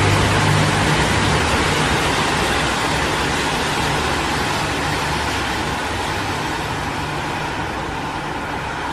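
Road traffic noise: a dense rush of passing vehicles with a low engine drone that eases after the first second or so, the whole slowly fading. No horn sounds.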